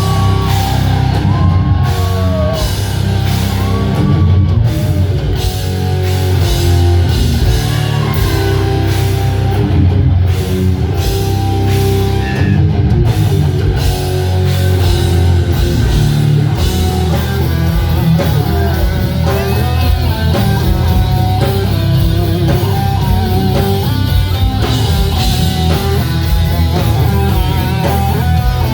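Rock band playing a new song live, loud and continuous, with electric guitar and drum kit.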